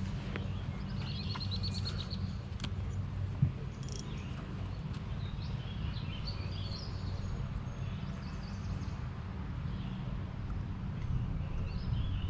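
Outdoor pond ambience: birds chirping, with a quick trill of repeated notes about a second in, over a steady low hum. A single sharp knock comes about three and a half seconds in.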